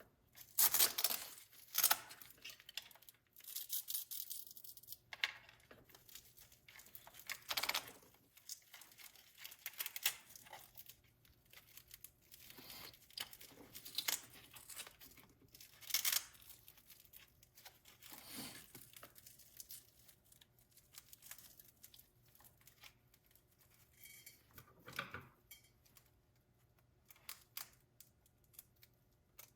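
Hook-and-loop (Velcro) battery strap on an RC truck being ripped apart and pressed shut several times, amid scattered clicks and rustles from handling the battery and plastic parts.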